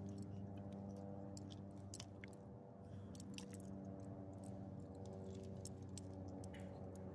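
A small dog chewing, with scattered short crunchy clicks, over a steady low hum.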